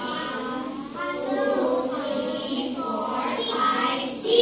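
Children's voices together in unison, drawn out in a sing-song, with a louder burst near the end.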